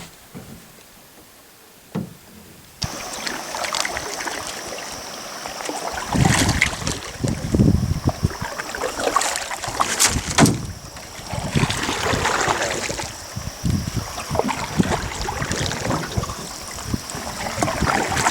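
Canoe out on open water: paddle and water noise with wind gusting on the microphone. It starts abruptly about three seconds in after a quiet stretch, and a thin steady high tone runs under it.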